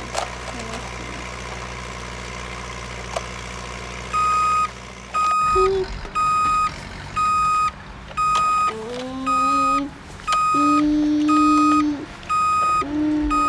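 Electronic sound effect from a battery-powered Hess toy truck: a steady reversing beep, a little under two beeps a second, starts about four seconds in. From about nine seconds in it is joined by a lower electronic engine tone that rises and then holds steady.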